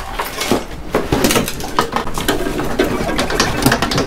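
Clattering and knocking of sheet-metal and plastic parts as the blower fan assembly is wrenched out of a dismantled air conditioner, a quick irregular run of sharp knocks.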